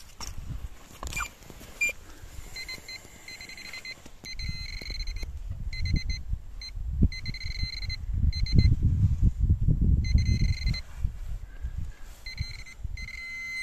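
Handheld metal-detecting pinpointer giving broken, repeated high beeping as it is probed into a dug hole, the tone marking a metal target in the soil at its tip. Gloved hands crunch and scrape through loose soil, loudest in the middle stretch.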